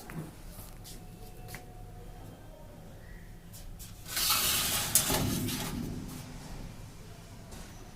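Handling noise from unboxing a PC cabinet: a few faint clicks, then about four seconds in a loud rustling scrape with a sharp knock a second later, fading out over about two seconds.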